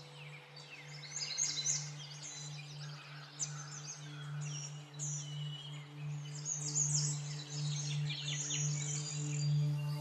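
Background soundtrack: a steady low drone with birdsong chirping over it.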